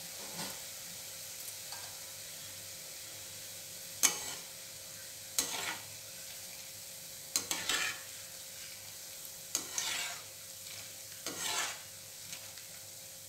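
Boondi droplets of gram-flour batter sizzling steadily as they deep-fry in hot oil in a metal kadai. A perforated ladle stirs through them, knocking and scraping against the pan about five times.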